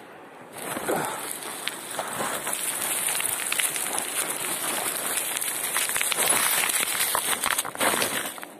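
Footsteps crunching and sliding on loose river stones, gravel and dry grass as a person climbs down a steep rocky bank, a dense run of crunches starting about a second in.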